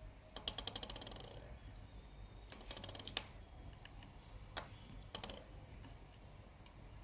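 Solder flux crackling and popping under a soldering iron tip on circuit board pads: a fast run of small ticks about half a second in, another cluster around three seconds, and a few single pops later.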